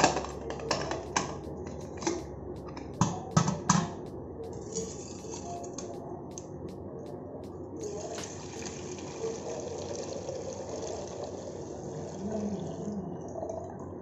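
Metal clinks and knocks as a steel can is handled, then liquid poured from it into a stainless steel pot: a short splash about five seconds in, then a steady pouring hiss for about five seconds near the end.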